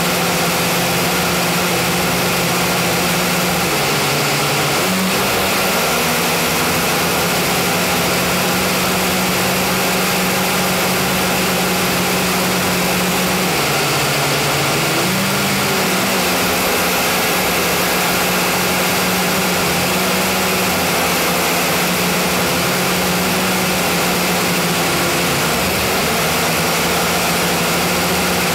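JJRC H29G quadcopter's motors and propellers buzzing steadily, heard close up from the camera it carries, the pitch dropping and rising a few times as the motor speed changes in flight.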